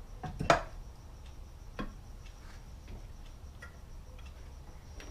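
Sharp metal knocks and light clicks as the stator cover of a Yamaha Raptor 700 engine is handled and set against the engine case: one loud knock about half a second in, a second about two seconds in, then faint scattered ticks.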